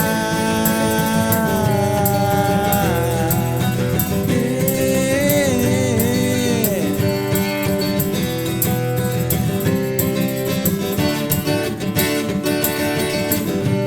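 Instrumental break of an acoustic rock song: acoustic guitar accompaniment with a melodic lead line that bends in pitch.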